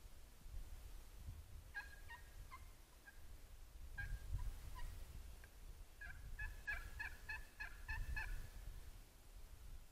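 Turkey yelping, a series of short high notes: a few scattered notes, then a quicker run of about ten near the end, over a steady low rumble.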